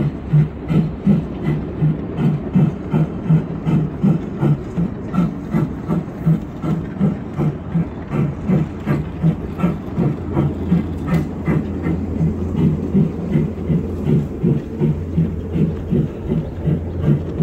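Ride-on miniature railway train running along the track, with a steady rhythmic beat about three times a second over a low hum that grows louder partway through.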